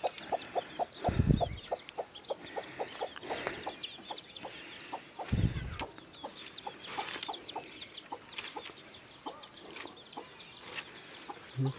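Chickens clucking and chirping in short, quick calls, with two dull low thumps, one about a second in and one around the middle.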